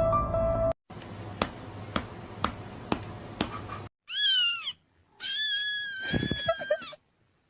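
Cat meowing twice: a short, high meow falling in pitch about four seconds in, then a longer, steadier meow. Before the meows, faint regular clicks come about twice a second over a low hiss, after a brief stretch of music that cuts off in the first second.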